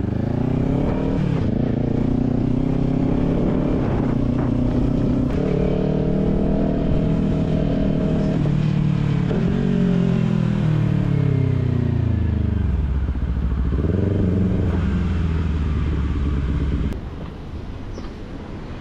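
Sport motorcycle engine, heard from the rider's seat, pulling away and riding through traffic: its pitch rises, falls off and climbs again as the bike speeds up and slows down. Near the end it drops to a quieter, steady idle as the bike stops at the kerb.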